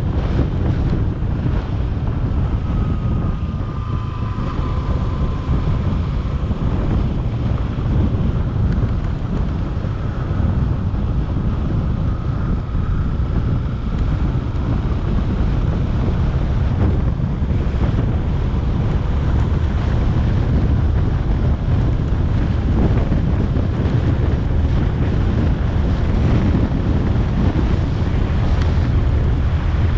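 Steady wind rush buffeting the microphone of a camera on a moving motorcycle, with the motorcycle's running faint beneath it. A faint whine rises out of the rush twice in the first half.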